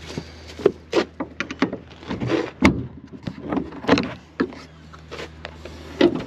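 A series of sharp knocks, clicks and clanks as a farm loader's door and engine cover are opened and handled, over a steady low hum.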